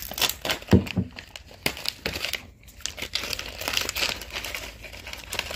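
Thin plastic snack packet of wafer rolls crinkling and crackling as gloved hands pull it open, in irregular crackles that are loudest about a second in.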